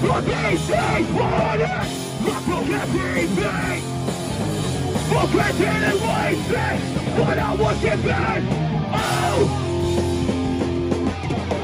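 Hardcore punk band playing live, with yelled vocals over the band.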